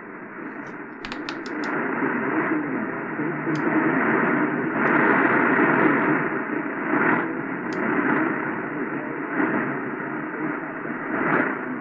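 Sangean HDR-16's speaker playing the 540 kHz AM channel at night: heavy static with a faint, distant station underneath, swelling and fading as the Terk passive loop antenna beside it is turned to peak the signal. A few sharp clicks about a second in.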